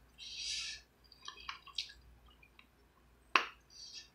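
Wet squishing and dripping as fingers dig a piece of golden potato out of a bowl of spicy red seafood-boil sauce, with a few small clicks and one sharp click about three and a half seconds in.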